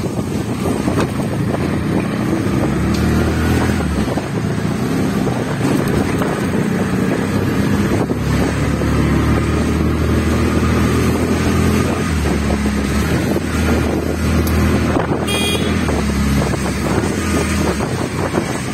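Vehicle engine running over a steady rush of road and wind noise, the engine note shifting up and down a few times. A brief high, buzzy sound cuts in about 15 seconds in.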